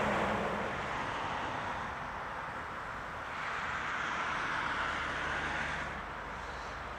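Road traffic passing: tyre and engine noise of a vehicle fading away, then another swelling and fading from about three to six seconds in, over a steady low engine rumble.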